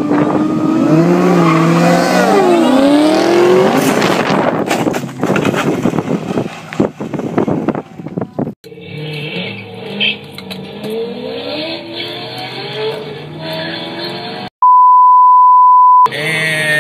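Ford Mustang engine revving hard as the car launches, rising in pitch with tyre squeal. After a cut, another car's engine runs more quietly. Near the end a loud steady beep tone lasts about a second and a half.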